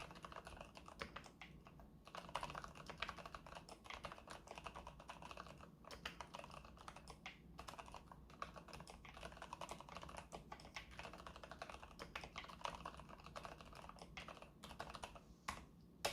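Continuous typing on a Keychron K8 Pro tenkeyless mechanical keyboard with silent brown switches: quiet, muffled keystrokes in quick succession, with a few short pauses and one louder key strike near the end.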